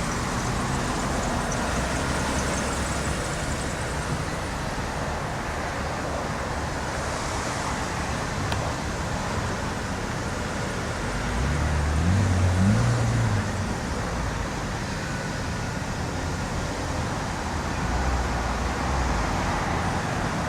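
Steady road traffic noise, with one vehicle's engine growing louder and rising in pitch about twelve seconds in.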